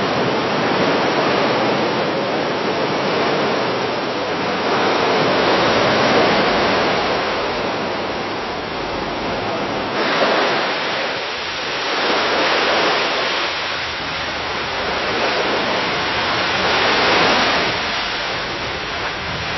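Gentle waves washing against a dock, the splashing water swelling and ebbing every few seconds. About ten seconds in, it gives way to another take of the same waves.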